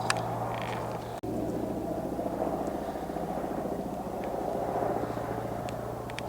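A steady, low mechanical drone with a fast pulsing beat.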